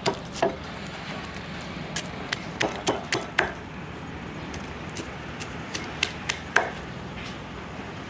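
Pestle pounding chilli paste in a mortar: irregular sharp knocks in quick clusters, with a pause of a couple of seconds in the middle.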